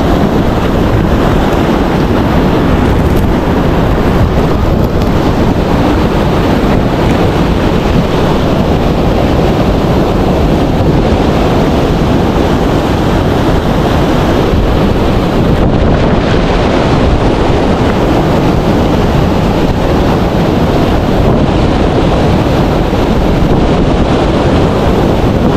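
Wind buffeting the microphone: a steady, loud low rumble that stays even throughout.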